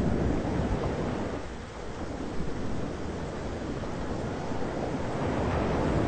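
Thunderstorm ambience: a steady rushing of wind and rain over a low rumble. It eases briefly about a second and a half in and swells again near the end.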